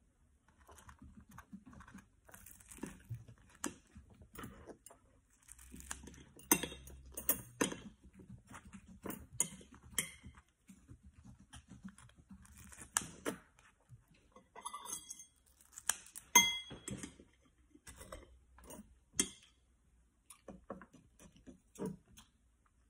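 Cutlery clinking and scraping against plates and bowls, in scattered short knocks and clinks, a few of them ringing briefly, the loudest about 16 seconds in.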